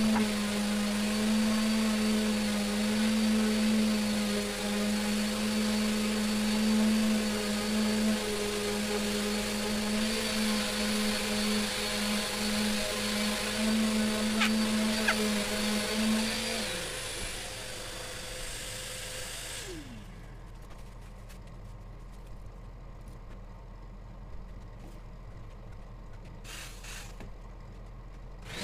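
An electric motor running with a steady hum and whine, winding down with a falling pitch about 17 seconds in. A quieter, low hum follows, with a few faint clicks.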